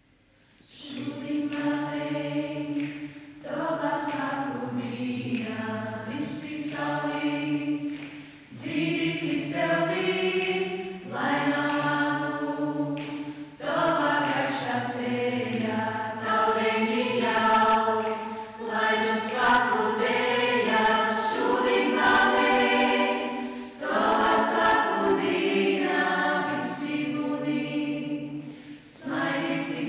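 A small young mixed choir, mostly girls' voices, singing a cappella in several parts. The singing starts about a second in and runs in phrases of a few seconds, with short breaks for breath between them.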